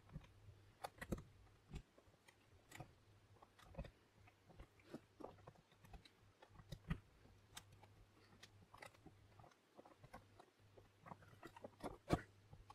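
Faint, irregular small metallic clicks and scratches of bicycle spokes picking the pin stack of a barrel lock, one spoke held as a tension wrench while the other pushes the pins into their set positions.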